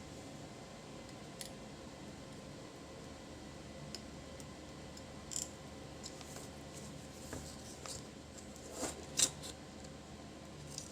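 Faint steady hum with a few sparse, light clicks of small hand tools working on a circuit board, the loudest pair about nine seconds in.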